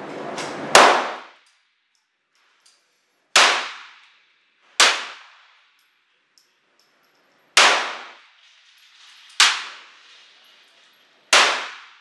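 Glock 17 9 mm pistol fired in slow single shots, six in all, spaced one and a half to three seconds apart. Each shot cracks sharply and rings off briefly in the enclosed indoor range.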